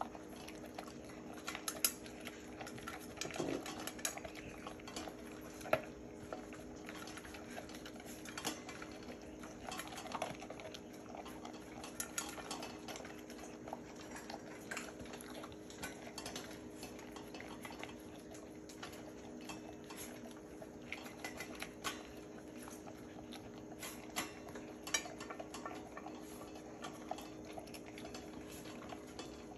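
A chocolate Labrador retriever eating from a stainless steel dog bowl, with irregular clinks and knocks as its muzzle and tongue hit and scrape the metal, and a steady hum underneath.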